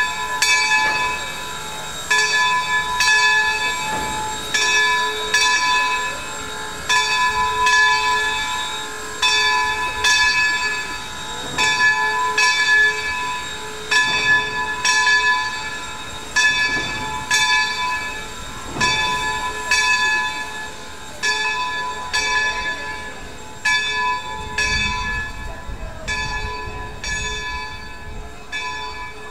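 Baldwin Locomotive Works No. 26 steam locomotive's bell ringing steadily, about one strike a second, as the engine moves slowly. A low rumble comes in briefly near the end.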